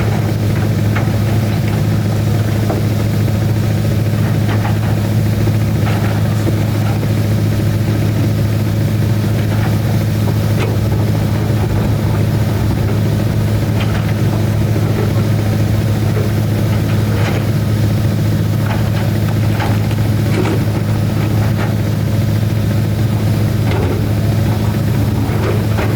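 Excavator's diesel engine running steadily at a constant speed, with scattered faint knocks and clicks.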